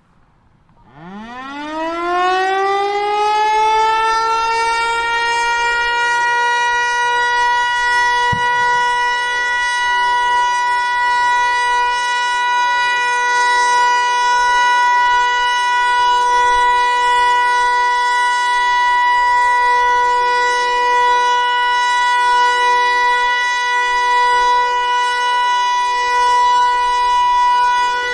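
Federal Signal Eclipse 8 outdoor warning siren starting its steady Alert signal: its pitch rises quickly about a second in and then holds one loud, steady tone.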